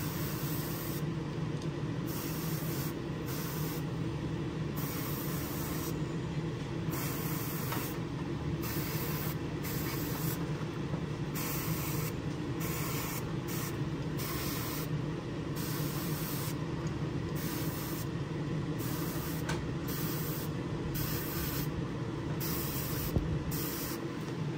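Airbrush spraying paint in repeated short bursts of hiss, the trigger pressed and released roughly every second or two, over a steady low hum.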